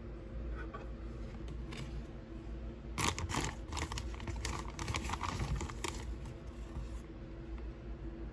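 Packaging crinkling and clicking as it is handled, a dense run of small sharp noises lasting about three seconds from about three seconds in, over a steady low hum.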